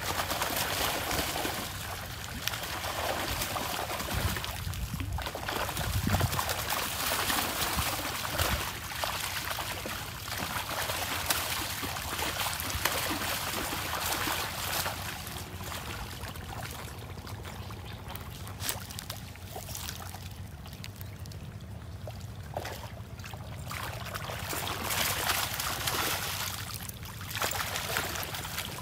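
Water splashing and pouring off a cast net as it is hauled out of the water by hand, coming in surges with each pull.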